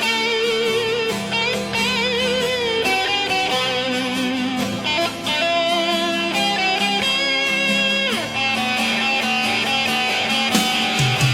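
Background music led by electric guitar, with sustained bending notes over a steady accompaniment.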